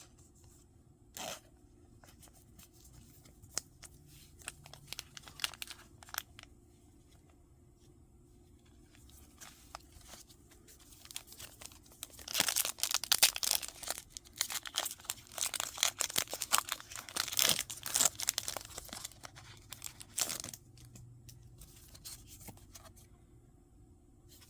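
Foil wrapper of a Pokémon card booster pack being torn open and crinkled, with a dense run of crackling for about eight seconds in the middle. Before it come scattered light clicks of handling.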